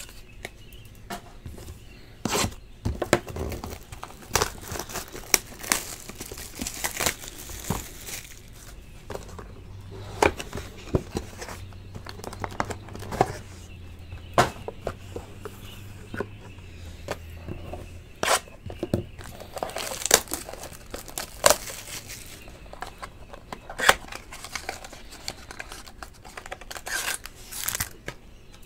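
Hands sorting trading cards: crinkling plastic and rustling, broken by many sharp taps and clicks as cards and hard plastic holders are set down on the table.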